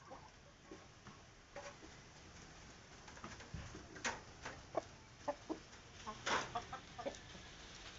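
Village chickens clucking while they feed: a scatter of short clucks and sharp little taps, coming thicker about halfway through.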